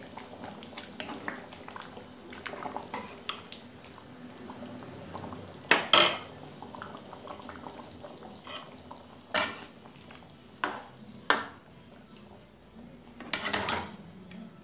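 Metal ladle scraping and stirring in a wok of finished chicken curry, with four louder clanks of ladle on the wok's metal side spread through.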